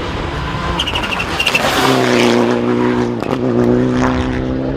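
Rally car at speed on a stage: a rush of noise with many sharp ticks that is loudest about two seconds in, followed by a steady engine note held at constant revs.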